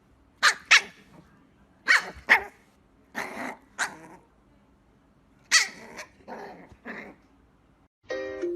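A dog barking: about eight short, loud barks, several in quick pairs, with pauses between them. Plucked-string music comes in just before the end.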